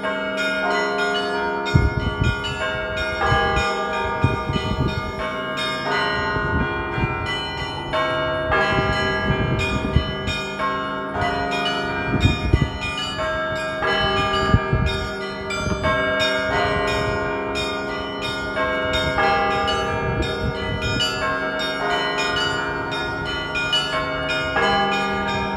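Russian church bells being rung in a continuous peal: several bells at different pitches struck over and over in overlapping strokes, each stroke left ringing under the next.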